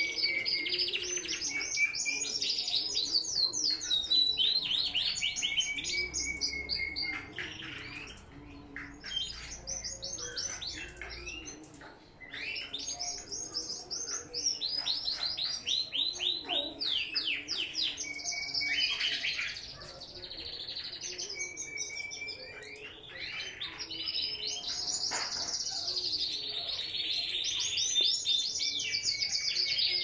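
Canaries and Gouldian finches singing: long, almost unbroken runs of fast trilled, repeated notes and chirps, briefly quieter about a third of the way through.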